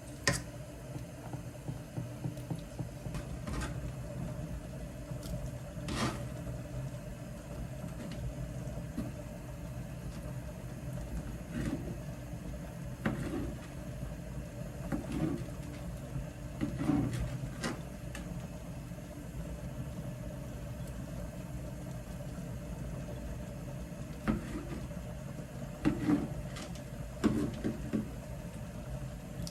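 Steady low mechanical hum of kitchen appliances, with scattered light clinks and knocks of cooking utensils and dishes.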